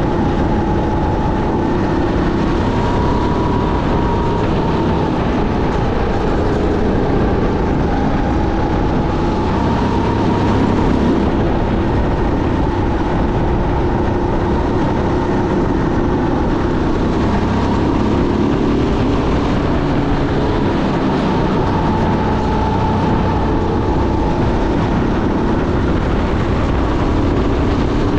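Sodi SR5 rental kart's engine running flat out, heard close up from the kart, its pitch rising and falling with the throttle through the corners.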